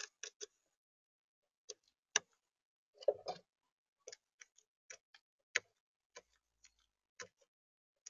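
Eurasian magpie pecking at mixed seed in a plastic feeder tray: sharp, irregular beak clicks and taps, with a louder flurry of taps about three seconds in.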